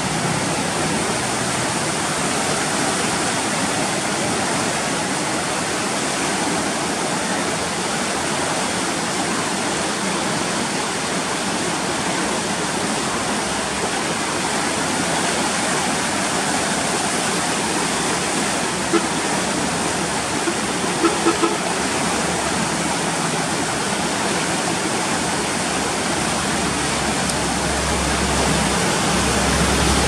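The Sapta Koshi River in flood at danger level, its turbulent floodwater rushing past the barrage with a steady, unbroken rush. A few short taps sound about two-thirds of the way through.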